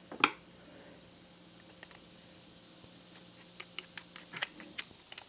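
A sharp clack of a tool handled on the wooden bench about a quarter second in. From about three seconds in, a run of small irregular metal ticks as a screwdriver turns a screw into the cast carburetor body.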